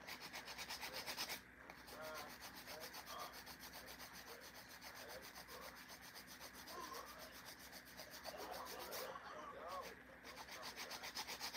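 Nail file scraping across acrylic nails in quick, even back-and-forth strokes, pausing briefly twice, as the nails are filed into shape.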